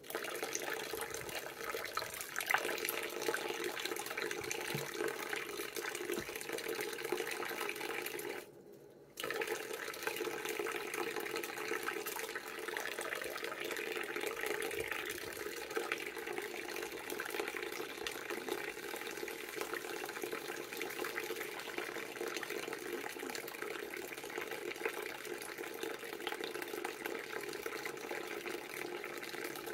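Water running steadily from a tap into a sink basin, stopping briefly about eight seconds in.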